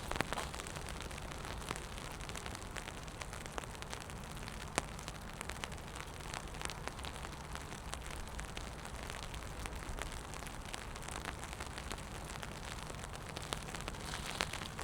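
Steady rain falling, with many small drops ticking and pattering on wet pavement.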